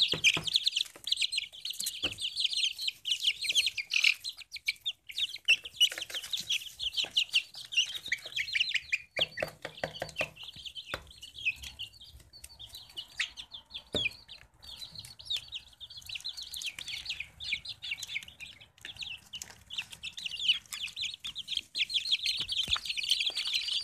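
A brood of young chicks peeping without pause, many high-pitched cheeps overlapping, with a few knocks from handling about ten seconds in.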